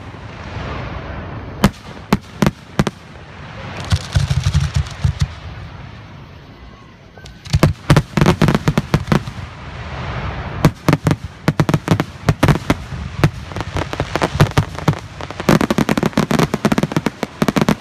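Fireworks display shells bursting close by: sharp bangs and rapid crackling that come in several dense waves, with short lulls between them.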